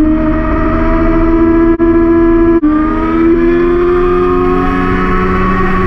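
Yamaha R6 inline-four engine running hard at high revs, its pitch climbing slowly. The sound cuts out briefly twice, about two and two and a half seconds in. After the second cut the pitch steps down and climbs again, as in an upshift.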